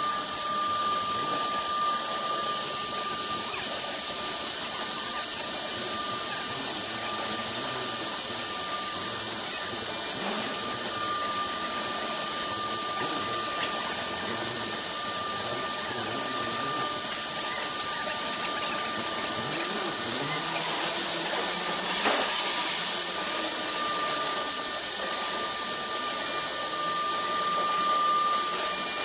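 CNC router spindle running at speed with a steady high whine as its bit engraves grooves into MDF.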